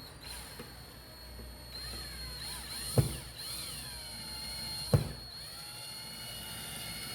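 Cordless drill/driver whining as it drives the screws of an old-work electrical box, its motor speeding up and slowing, then running steadily. Two sharp clicks stand out, about three and five seconds in.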